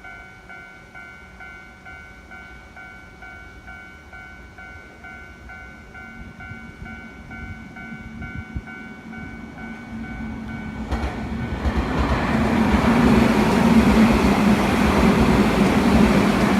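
Japanese level-crossing warning bell ringing in a steady rhythm, about two strokes a second. A Keio Inokashira Line electric train then approaches and runs through the crossing. Its rumble builds over the second half and drowns out the bell near the end.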